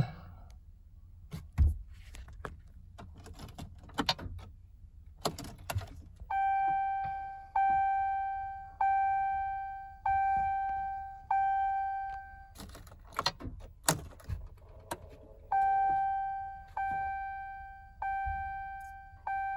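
Ram truck's dashboard warning chime dinging over and over, about one ding every 1.2 seconds, each fading away, in two runs with a short break between them. Before the chime starts there are light clicks and knocks.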